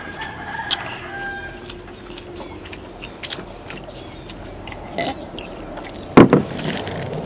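Quiet eating sounds: chewing with scattered small clicks and taps, and one sharp knock about six seconds in.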